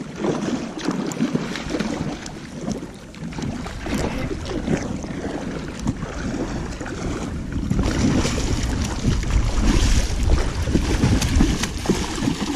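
A hooked coho salmon splashing and thrashing in shallow river water as it is played toward the bank, with wind buffeting the microphone, heavier in the second half.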